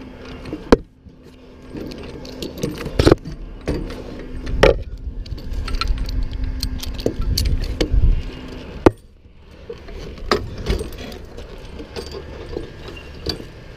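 Metal lineman's rigging hardware clinking and jangling: hooks, chain and rope-block fittings knocking together and against the wooden pole and crossarm, with a series of sharp clacks, the loudest about a second in and again about nine seconds in.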